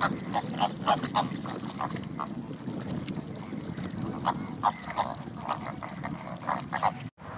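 Greater flamingos calling: short goose-like honks repeated irregularly, at times several a second, over steady low background noise.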